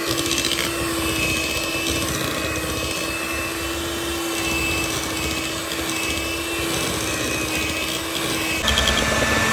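Electric hand mixer running steadily, its beaters creaming softened butter and sugar in a glass bowl. About a second before the end its hum turns abruptly louder and lower in pitch.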